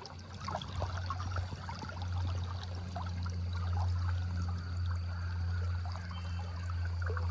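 Creek water trickling and gurgling over a steady low hum.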